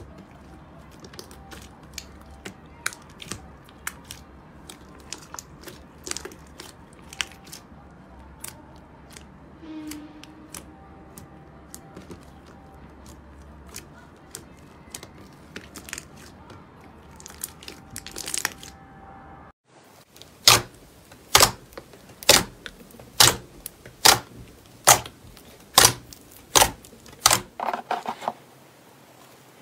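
Thick slime being squeezed and kneaded by hand, with many small sticky clicks and crackles. About two-thirds of the way in it cuts to a run of about a dozen loud, evenly spaced slime pops, about two a second.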